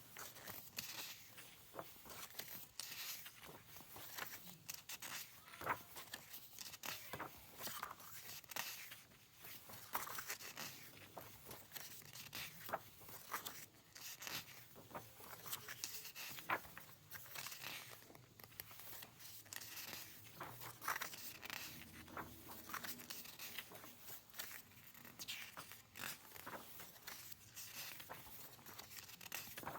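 Close-up handling of a fan-club kit's merchandise and packaging: rustling with many short clicks and taps.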